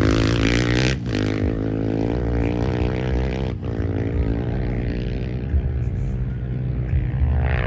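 Off-road vehicle engine running at a steady speed, a continuous drone with a strong low rumble.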